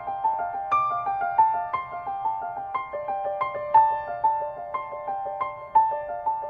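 Background music: a gentle piano melody of separate notes at an even pace, about three a second.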